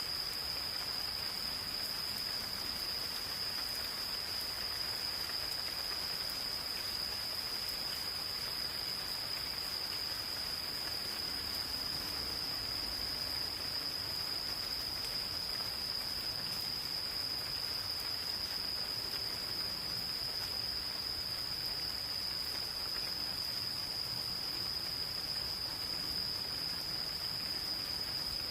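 Insects calling in one continuous, high-pitched trill that holds a steady pitch, over the soft patter of light rain in a forest.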